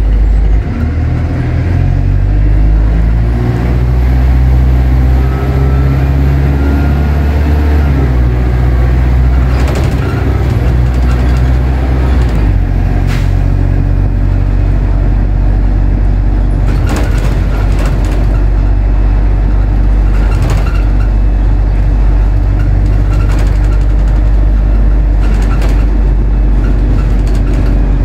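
Diesel bus engine heard from on board, its note stepping up and down for the first twelve seconds or so, then settling to a steady run, with occasional knocks and rattles from the bus.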